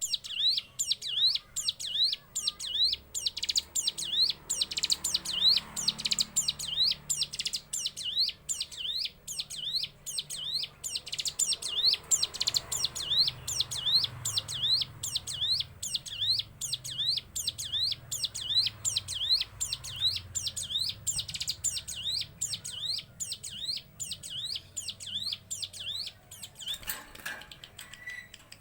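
Prenjak gunung, a prinia, singing its sewing-machine song: a long unbroken run of quick, high rising chirps, about two to three a second, fading near the end.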